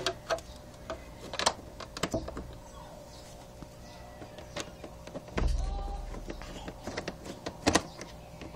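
Irregular small clicks and taps of a screwdriver turning a screw into a scooter's plastic front fairing. A low rumble comes in about five seconds in and fades over a second or so.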